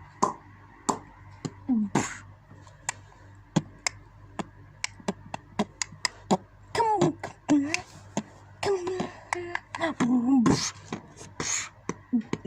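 A boy's voice making beatbox-style mouth sounds: many sharp clicks at an irregular beat, mixed with short pitched hums and a couple of hissing bursts near the end.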